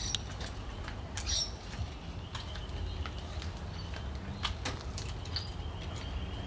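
Outdoor ambience: a few brief, high bird chirps over a steady low rumble, with scattered faint clicks.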